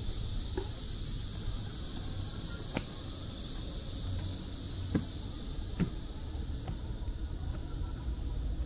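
City ambience of low traffic rumble and a steady high hiss, with a few soft taps scattered through it.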